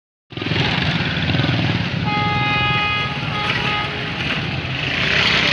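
Motorcycles running past at close range, small engines idling and pulling away, with one single-tone horn honk lasting about a second, about two seconds in.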